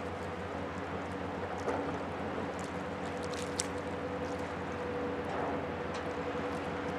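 Ship diesel engines droning steadily with a held hum, from a tugboat and a large container ship passing close, over the wash of the water.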